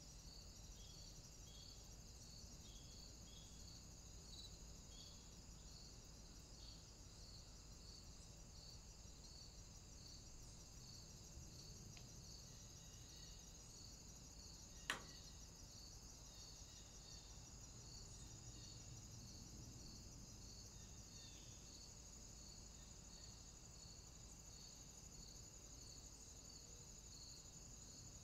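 Near silence with a faint, high chirping that pulses evenly all the way through, and one sharp click about halfway through.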